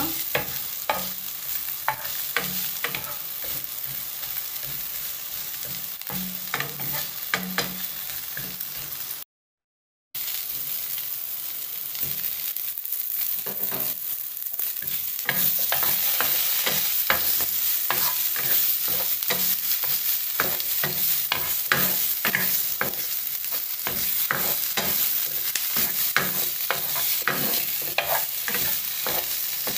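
Sliced onion and vegetables sizzling in oil in a frying pan while a wooden spoon stirs them, knocking and scraping on the pan. The sound drops out briefly about nine seconds in, and the sizzle is louder in the second half.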